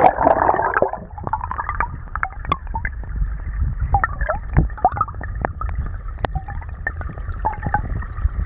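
Creek water heard through a phone microphone held underwater: a muffled, low rumble of the current with scattered clicks and taps. Water churns loudly in the first second as the phone goes under.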